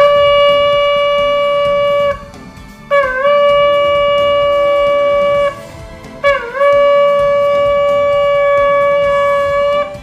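Shofar blown in three long, steady blasts (tekiahs), each held two to three and a half seconds on one note after a brief scoop down in pitch at its start, with short breaths between. Faint background music lies underneath.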